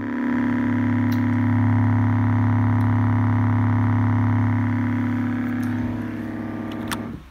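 A bare 4-inch subwoofer driver playing a steady low test tone with many overtones, driven hard for an excursion test. The tone fades over the last second or so and stops just before the end.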